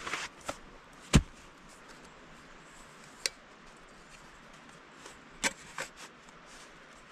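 Objects being handled, with a few short knocks and scrapes. The sharpest, loudest knock comes about a second in, and there are lighter clicks around three seconds and twice near six seconds.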